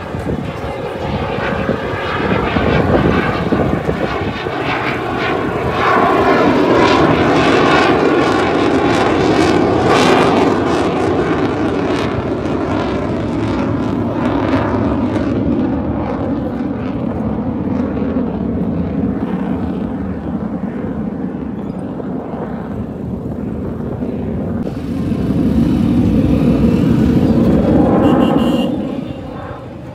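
Military jet aircraft flying past, a continuous jet-engine roar that swells about six seconds in, eases, swells again near the end and then fades away.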